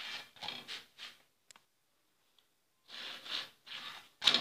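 A jowar roti being flipped and then pressed and rubbed down on a hot griddle by hand, in quick repeated rubbing strokes. The strokes come in two runs, with a pause of about two seconds between them.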